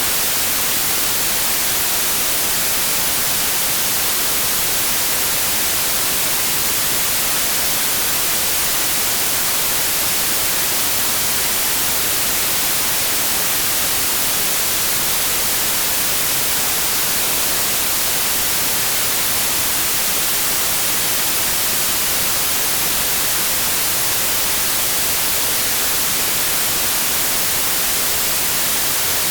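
Steady white noise: an even, unchanging hiss, brightest in the high end, with no tones or changes.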